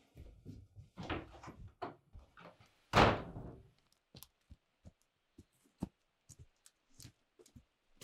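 Wooden door handled with knocking and rustling, then slammed shut once about three seconds in. After that, light irregular footfalls of someone running over a forest floor.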